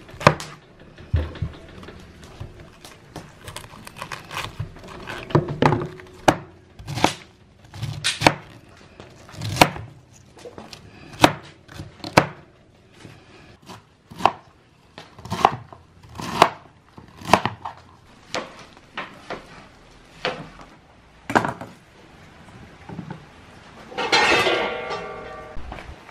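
Kitchen knife cutting through and chopping fresh white cabbage on a wooden cutting board: a run of separate sharp chops, irregular and roughly one a second. Near the end, a brief pitched cry lasts about a second and a half.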